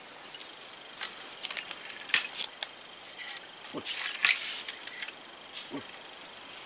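Insects chirring in one steady, unbroken high tone, with a few scattered sharp clicks and a short louder burst of noise about four seconds in.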